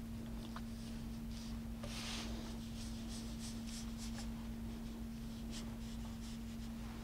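Brush strokes on heavy watercolor paper: soft, short scratchy swishes, the longest about two seconds in, over a steady low hum.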